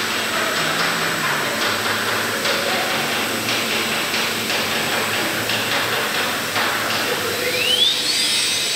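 Large gantry CNC machine running as its spindle head travels upward: a steady mechanical hiss with faint irregular ticks, and a brief rising whine near the end.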